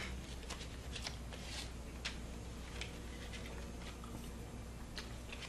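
Faint scattered ticks and short rustles of small objects being handled, over a steady low hum.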